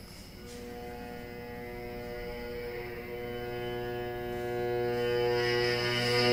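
Amplified cello playing one long bowed note that grows steadily louder, with the upper overtones coming through more strongly near the end.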